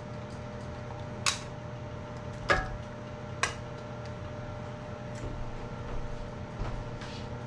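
A few sharp clinks of a glass canning jar and canning funnel being handled while peach halves are packed, three clear ones about a second apart and fainter ones later, over a steady hum.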